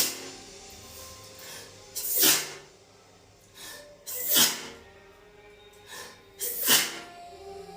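A woman in a sneezing fit, sneezing three times about two seconds apart. Each sneeze is a short voiced 'ah' breath leading into a sharp 'choo'.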